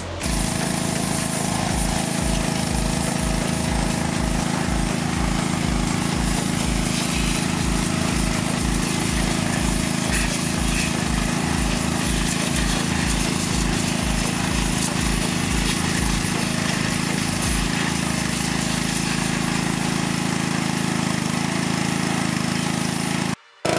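Pressure washer running steadily, its high-pressure jet spraying a greasy manual transmission case, with a hiss of spray over the machine's steady running. A low pulsing under it stops about 18 seconds in.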